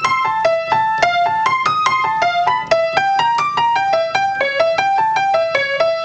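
Solo stride piano playing the 'waterfall effect': quick, even runs of arpeggiated chord tones, several notes a second, repeatedly cascading downward through chord inversions.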